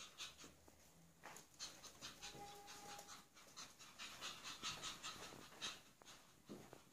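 Faint panting and soft quick scuffles from Pomeranian puppies playing on carpet, with a brief thin tone about two seconds in.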